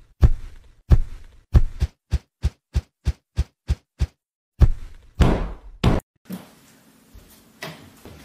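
Rhythmic soft thumps, a cartoon cat's tail beating on the floor. They speed up from about one and a half a second to about three a second, then give way to a few heavier, longer thumps.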